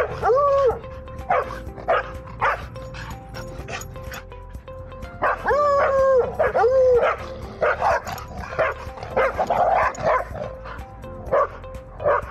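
Dogs barking and yowling during rough play: drawn-out calls that rise and fall in pitch at the start and again about five to seven seconds in, with short sharp barks between.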